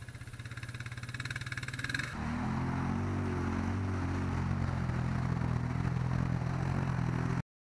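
A quad ATV's engine running steadily as it drives through mud. About two seconds in there is a cut to a louder side-by-side UTV engine revving in a mud pit, its pitch rising and falling, and the sound cuts off abruptly near the end.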